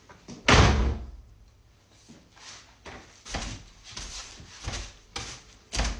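A wooden door shut with a loud thud about half a second in, then a broom brushed and knocked against the door panels in a run of strokes.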